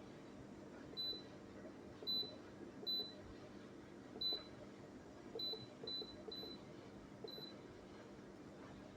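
Short high electronic beeps, eight in all at uneven intervals, like button presses on the Alpicool C9 compressor fridge's control panel, over a faint steady low hum.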